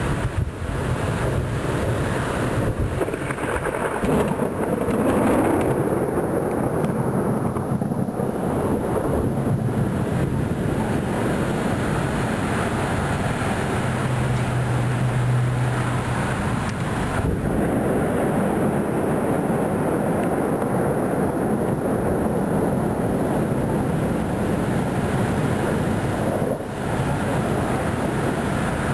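Thunder rumbling and rolling through a thunderstorm over a steady wash of rain noise, swelling louder about four to five seconds in.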